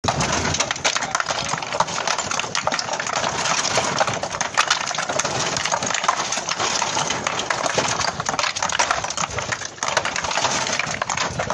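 Rough natural stone cladding blocks being unloaded by hand from a truck bed, clattering and clacking against one another and onto a pile in a rapid, irregular stream of knocks.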